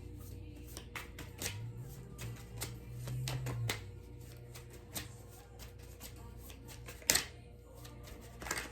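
Tarot cards being shuffled and handled: an irregular run of light card clicks and snaps, with one sharp snap about seven seconds in.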